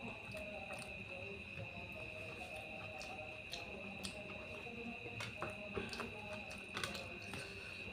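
Close-miked eating by hand: wet chewing and lip smacks as fried fish and rice are eaten, heard as scattered short clicks. A constant high-pitched whine runs underneath.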